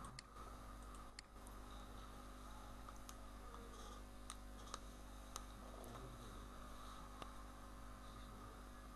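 Near silence: a steady low electrical hum with a scattering of faint, sharp clicks.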